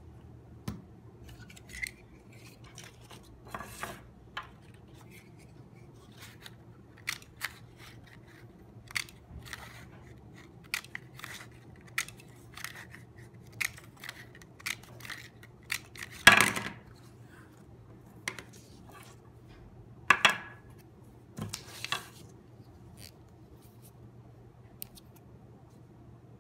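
Handheld lever-action heart-shaped paper punch clicking again and again as it cuts hearts out of a strip of red construction paper. Two louder clatters come about two-thirds of the way through.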